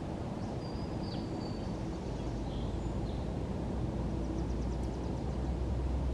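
Outdoor ambience: a low rumble of a distant engine builds through the second half, with faint bird chirps about a second in and a quick trill of high ticks around four seconds in.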